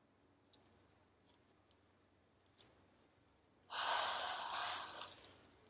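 A woman's long, breathy sigh about two-thirds of the way in, lasting about a second and a half, after a few faint small ticks.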